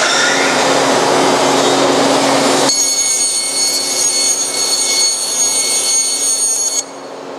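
Vertical bandsaw with its blade running at high speed, cutting through a stack of foil-backed urethane foam boards on its traveling table: a rough hiss for the first few seconds, then abruptly a steady high whine over a low hum, which drops away shortly before the end.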